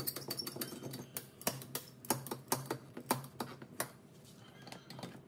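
One-handed quick bar clamp being ratcheted tight by squeezing its trigger handle, giving a quick series of sharp clicks about three a second that thin out near the end. The clamp is closing a foam press on a kydex knife sheath.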